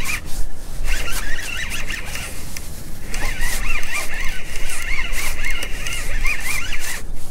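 Fishing reel being cranked against the pull of a hooked fish, its gears making a warbling, zipper-like whine that wavers with each turn of the handle. The reeling comes in two spells, with a short pause about two and a half seconds in.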